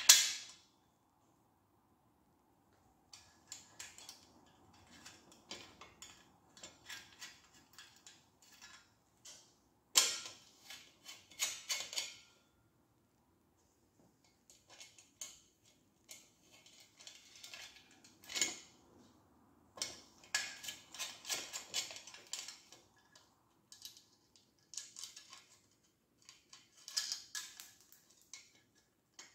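Small metal screws, washers and a steel number-plate bracket clinking and rattling as the bracket is fitted to a motorcycle's rear mudguard: irregular clusters of sharp clicks with short pauses, the loudest near the start and about 10 and 18 seconds in.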